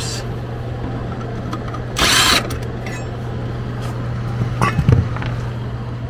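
A cordless driver runs briefly, about two seconds in, backing out a cover screw. Under it is the steady low hum of the furnace blower running, with a few small clicks near the end.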